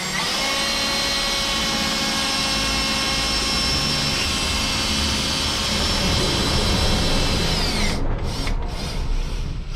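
Electric power tool motor running steadily at high speed, then winding down and stopping about eight seconds in, followed by a few short blips of the trigger.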